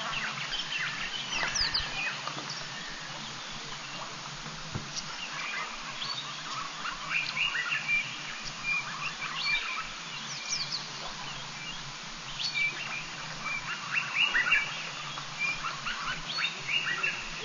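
Small birds calling around a bush waterhole: many short chirps and trills, near-continuous and busier in the second half, over a faint steady low hum.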